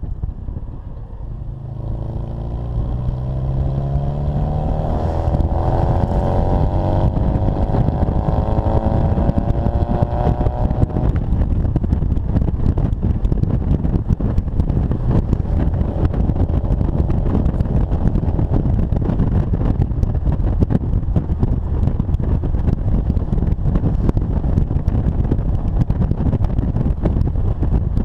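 Exhaust note of a 1960 Austin-Healey Bugeye Sprite's 948 cc four-cylinder engine with performance upgrades, heard from the moving car. The pitch rises as it accelerates for about the first ten seconds, then it holds steady at speed.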